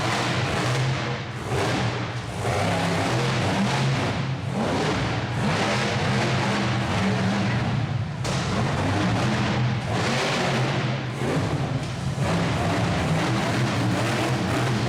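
A motor vehicle's engine running steadily with a deep hum, mixed with background music.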